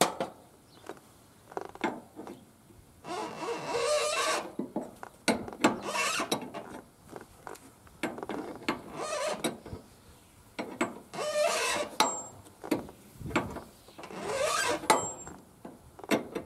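A wrench tightening a brass flare nut onto a mini-split outdoor unit's service valve: about five rasping, ratchet-like strokes, each lasting about a second, with sharp metallic clicks between them.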